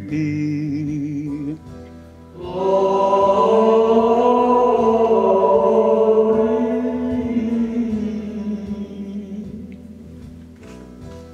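A man singing a slow song of praise in long held notes with vibrato: a brief pause about two seconds in, then one long note that fades away near the end.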